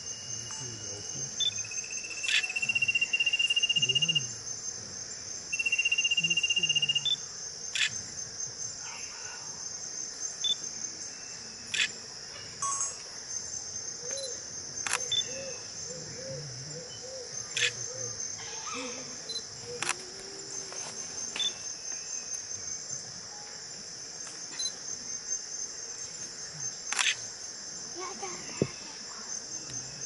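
Steady, high-pitched, pulsing chorus of forest insects throughout. About a second and a half in and again near six seconds comes a loud, long, steady high tone, the loudest sounds here. Scattered sharp clicks and short calls punctuate the chorus, with a run of soft low repeated notes in the middle.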